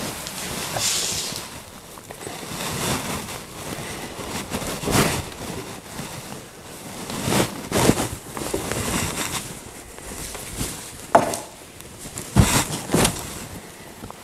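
Linen upholstery cloth rustling as it is pulled and smoothed over a padded chair seat, with a few sharp knocks near the end.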